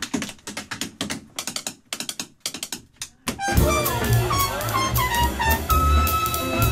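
A run of sharp, irregular percussive clicks, then about halfway a jazz combo comes in loud, a trumpet playing held and sliding notes over bass and drums.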